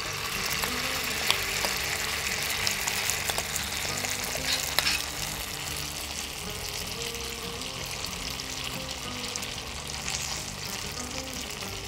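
Idli batter mixed with grated vegetables being poured into hot oil in a pan tempered with cumin, mustard seeds, sesame seeds and curry leaves, sizzling steadily. The sizzle is strongest in the first half and eases a little after about six seconds, with an occasional sharp tick.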